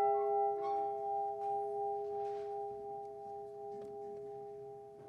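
The Edmund Fitzgerald's bronze ship's bell ringing on after a single strike, its tone slowly fading. It is tolled once in memory of one lost crewman.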